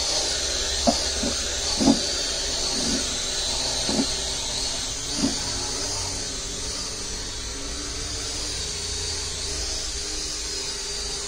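Small racing quadcopter hovering, its motors and propellers giving a steady high whine whose pitch wavers slightly as it holds its position. A few short low bumps sound in the first five seconds.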